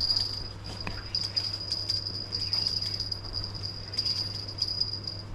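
Insects trilling: a steady high-pitched buzz that swells in pulses, over a faint low steady hum.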